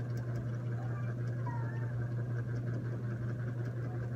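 A steady low hum from a machine or appliance running in the room, unchanging in pitch and level.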